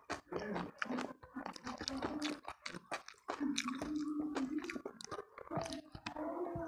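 Close-miked mouth eating a mouthful of rice and crispy fried food: wet chewing with many irregular crunchy clicks. A low hum in the throat comes in twice, about halfway and near the end.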